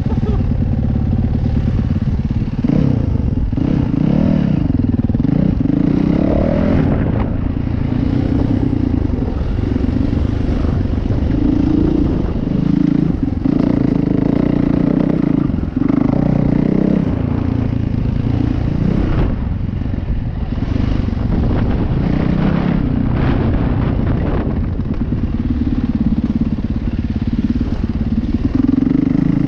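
Dirt bike engine running under way, its pitch rising and falling as the throttle is opened and closed over rough ground. Occasional knocks and rattles come from the bike.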